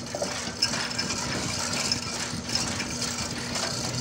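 Chain hoist clicking rapidly while it lowers a hanging excavator radiator into place, over a steady machine hum.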